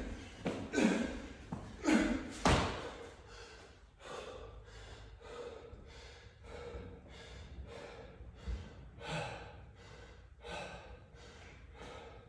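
A man breathing hard through a set of pull-ups, with a thud about two and a half seconds in as he drops off the bar. He then pants quickly, about two breaths a second, winded between sets of a CrossFit workout.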